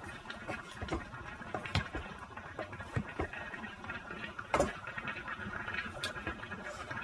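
Plastic kitchen knife cutting through a stack of sliced meat and tapping on a cutting board: irregular soft knocks, the loudest about four and a half seconds in.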